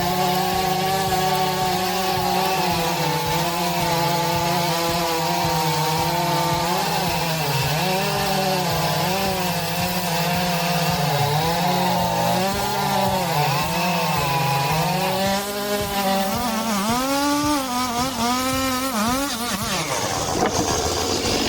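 STIHL two-stroke chainsaw at full throttle cutting through a large log. Its engine pitch holds steady at first, then sags and recovers again and again as the chain bites into the wood, more often toward the end.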